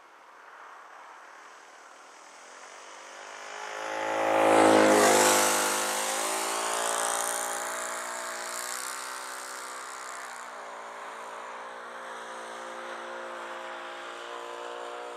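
Radio-controlled model airplane engine on a fly-by. The engine note grows louder, passes close about five seconds in with a drop in pitch, then carries on steadily and more faintly as the plane flies away.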